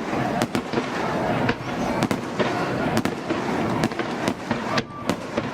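Aerial fireworks bursting in rapid succession: many sharp bangs and cracks, irregularly spaced at about three a second, over a continuous noisy wash of further bursts and crackle.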